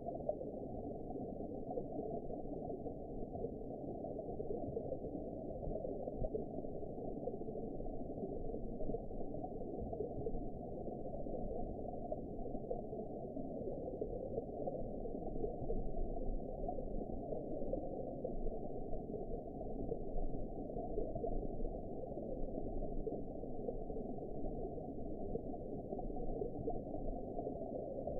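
Underwater ambience: a steady, muffled low wash of water with faint gurgling, all of it dull and deep with no bright sound above it, swelling a little now and then.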